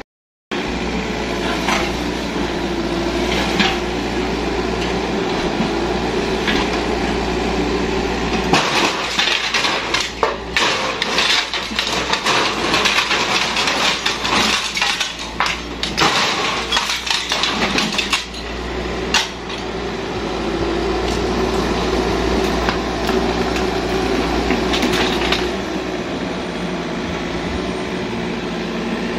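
Yanmar mini excavator's diesel engine running steadily. From about 8 to 19 seconds in, repeated crashes and clattering of breaking wood and roofing as the bucket pulls down an old shed. The engine runs on alone after that.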